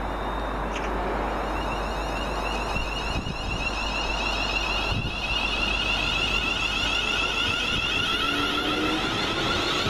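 Class 350 Desiro electric multiple unit pulling away and passing close by, its traction equipment giving a steady high whine over the rumble of the train. A lower tone rises gently near the end as it gathers speed.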